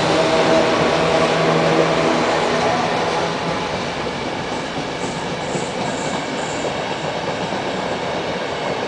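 A train passing at low speed. A steady hum with several tones from its drive fades out after two to three seconds, leaving an even rushing noise of the passing train.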